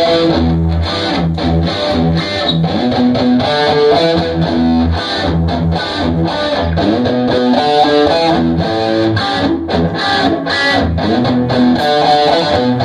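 Rock band playing live: electric guitar, electric bass and drum kit, loud and steady with a regular drum beat.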